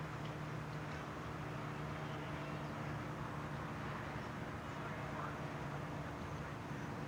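Steady low hum with an even hiss, unchanging throughout.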